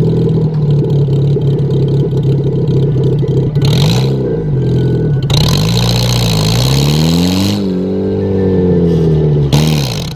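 Car engine running and revving, its pitch rising and falling several times, with loud hissing noise over three of the revs.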